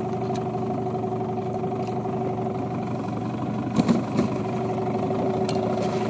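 Yamaha 9.9 outboard motor running steadily at an even pitch, pushing the boat along the river.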